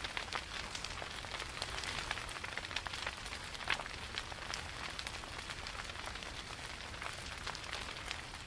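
Steady rain, with a dense patter of drops ticking on a surface.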